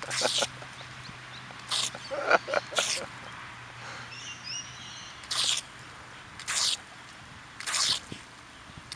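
A dog snapping and snorting at the water jet of a pop-up lawn sprinkler. The spray hisses and splatters in several short bursts, each about a third of a second, with gaps of a second or more between them.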